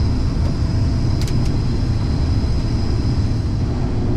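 Case IH 2388 combine running steadily while harvesting soybeans, heard from inside the cab: a steady low drone with a faint high whine over it, and two light clicks about a second in.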